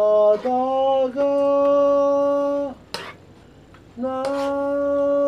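A man singing a slow song in Korean with no backing, holding long, steady notes. The singing stops briefly about three seconds in, with a light click, then resumes on another held note.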